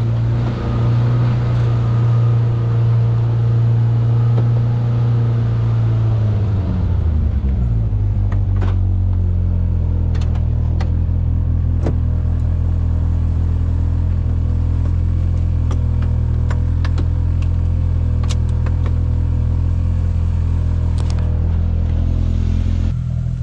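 Off-road vehicle's engine running steadily under way, its pitch dropping about seven seconds in and then holding lower and even. Scattered light clicks and knocks come through from then on as it rolls over the trail.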